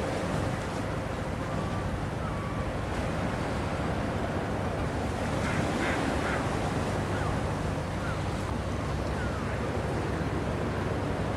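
Steady wash of wind and water over a low, even hum from the purse seiner's engine, with a few brief bird calls near the middle.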